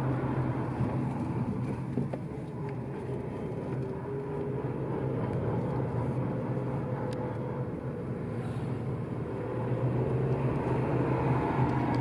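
Car driving, heard from inside the cabin: a steady engine hum with road and tyre noise, the engine note drifting a little up and down in pitch.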